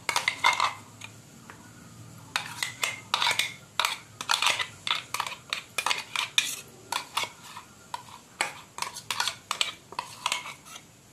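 A metal spoon scraping and clinking against the inside of a stainless-steel mixer-grinder jar, a few sharp strokes a second, as ground chutney is scraped out. There is a short pause about a second in.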